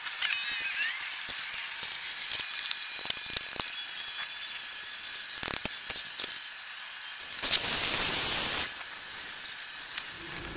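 Knife work on a hanging hog carcass: scattered small clicks and scrapes of a blade cutting and pulling at the meat. A burst of hiss lasting about a second comes about seven and a half seconds in.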